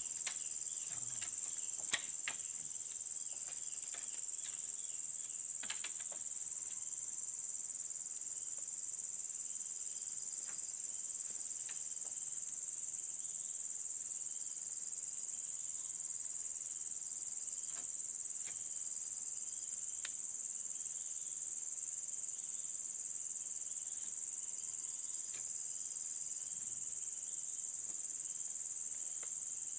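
Steady high-pitched chorus of forest insects, with scattered sharp clicks and knocks from bamboo poles being handled; the sharpest click comes about two seconds in.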